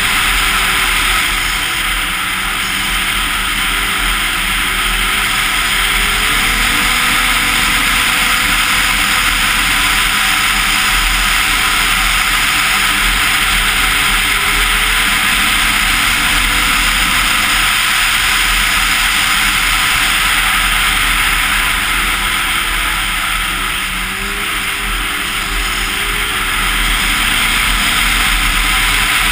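Arctic Cat Crossfire 1000 snowmobile riding along a trail: its two-stroke twin engine runs on, pitch drifting up and down with the throttle, under a steady rush of wind on the helmet camera. It eases off briefly about three-quarters of the way through.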